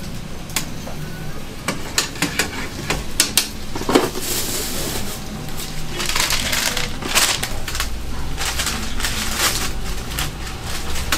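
Metal spatula and steel toast mold knocking and scraping on a flat-top griddle: a run of sharp clicks in the first few seconds, then stretches of scratchy scraping noise.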